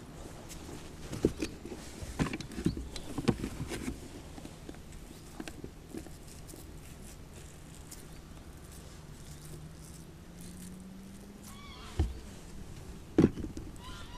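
Scattered clicks, taps and knocks of hands handling a hook, bait and tackle box on a wooden platform, busiest in the first few seconds, with two sharper knocks near the end.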